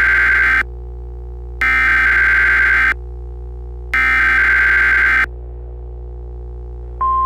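Emergency Alert System SAME header: its harsh digital data burst is sent three times, each about a second and a half long with a short gap between, over a steady low synthesizer drone. Near the end, a steady NOAA Weather Radio 1050 Hz warning alarm tone begins.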